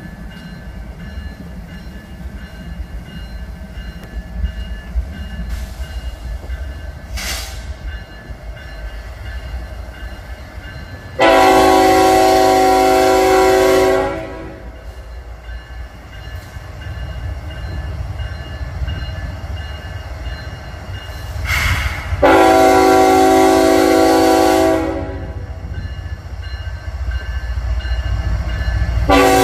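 Diesel freight locomotives of a manifest train getting under way, their low engine rumble building through the second half. An air horn sounds two long blasts, about 11 and 22 seconds in, and another begins at the very end.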